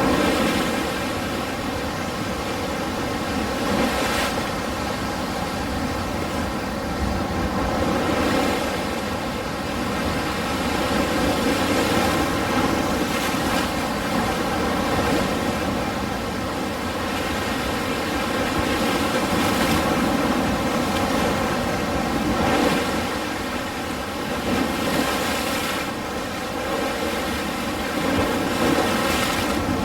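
Ocean surf: a steady wash of breaking waves, swelling a little louder every few seconds.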